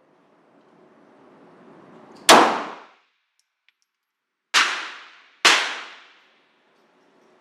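Three 9mm shots from a Glock 17 pistol: one about two seconds in, then two more close together about a second apart near the middle. Each shot is a sharp crack with a short echoing tail.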